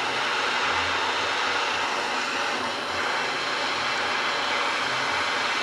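Handheld soldering torch flame burning with a steady hiss as it heats a copper ball valve joint that is not yet taking solder, because the valve was left closed during soldering.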